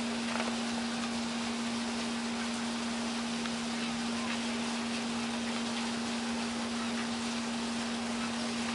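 A steady hum at one unchanging pitch under an even hiss, with a few faint ticks.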